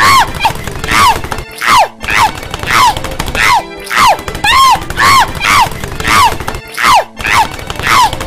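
A squeaky, high-pitched cartoon voice crying out over and over, about twice a second. Each cry falls sharply in pitch, like a yelp of pain from a character tumbling down stairs.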